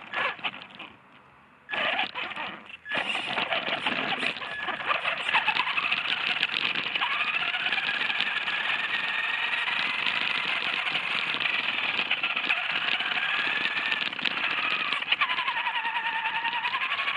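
Radio-controlled car's electric motor whining, its pitch rising and falling with speed, over the tyres crunching on gravel. It drops away briefly about a second in, then runs on steadily.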